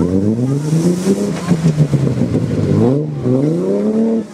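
Off-road vehicle engine accelerating, its pitch climbing, then dropping suddenly about three seconds in as it changes gear and climbing again.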